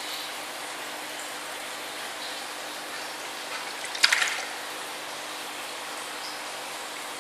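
Water splashing in a shallow basin as a hand grabs black ranchu goldfish, with one sharp splash about four seconds in, over a steady hiss.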